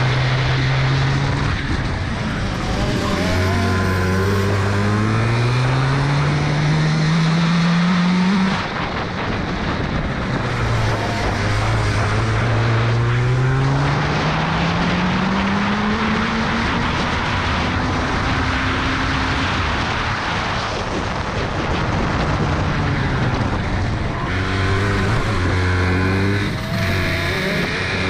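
Hirth two-stroke kart engine under hard acceleration, its note climbing in two long steady rises and dropping sharply as the throttle comes off about eight seconds in. Near the end the revs rise and fall in shorter, choppier spurts.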